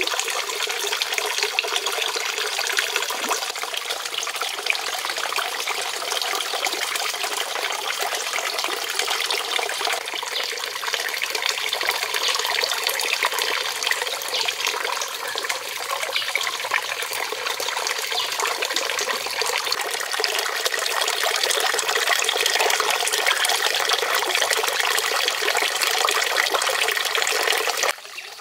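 A thin stream of water falling from a spout into a shallow pond, splashing steadily. The sound drops away suddenly near the end.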